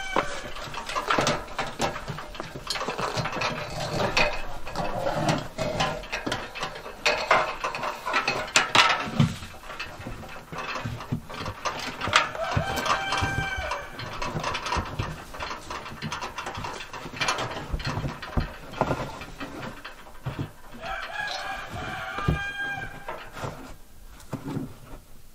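A rooster crowing a few times, each crow a long held call, with scattered knocks and rustling in between.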